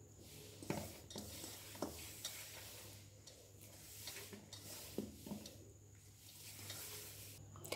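Hand kneading stiff maida dough in a stainless steel bowl: faint rustling and squishing of crumbly flour and ghee, with a few soft knocks of the hand against the bowl.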